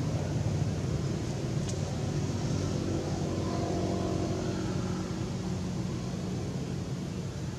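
Steady low rumble of an engine running, with a faint engine tone that swells in the middle and fades again.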